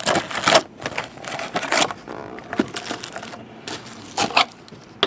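Trading-card packaging being opened and handled: irregular crinkling, scraping and rustling of cardboard and wrapper, with a cluster of louder crackles in the first two seconds and another about four seconds in.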